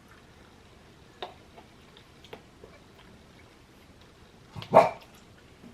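A utensil clicking lightly and irregularly against a noodle pot as the noodles are stirred, with one louder knock near the end.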